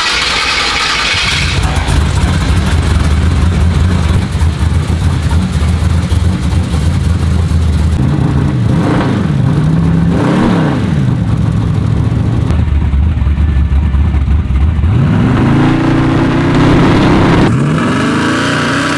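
Street racer's engine running loud through a newly finished full exhaust, with a steady deep drone. It is revved up and down twice about halfway through, and revs up again for a couple of seconds near the end.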